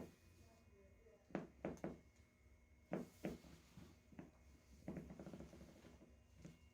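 Faint, short cracking pops of joints during a chiropractic adjustment: one at the start, a quick run of three about one and a half seconds in, two more about three seconds in. A patch of soft rustling follows about five seconds in.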